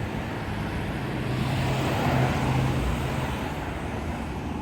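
Street traffic: a motor vehicle passes, its noise swelling to a peak about two seconds in and then fading, over a low engine hum.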